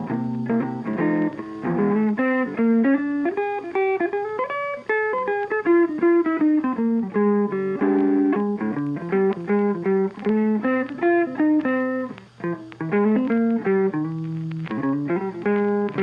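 Background music: a guitar playing a continuous run of plucked notes.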